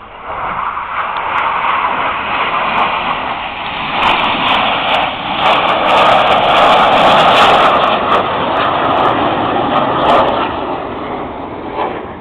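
Jet noise from a formation of BAE Hawk jet trainers passing low overhead. It rises sharply at the start, is loudest around the middle and fades toward the end.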